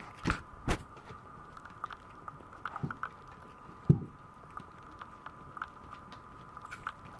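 A Maltese dog and her puppies moving close to the camera: soft bumps in the first second as fur brushes the microphone, a louder low bump about four seconds in, and scattered small clicks and taps. A steady faint high hum runs underneath.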